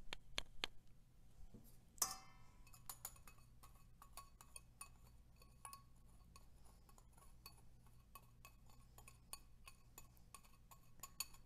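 Wire whisk tapping and scraping against a small glass bowl, knocking a cornstarch-and-spice mix out over the fries: faint, irregular light clinks and ticks, with one louder ringing clink about two seconds in.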